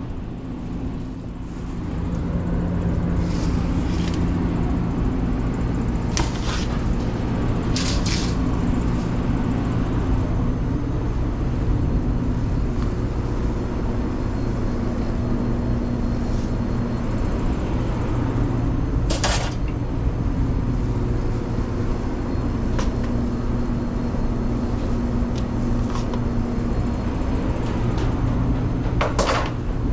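Steady low hum of commercial kitchen equipment such as a conveyor pizza oven's fans, with a few short clanks of metal utensils now and then.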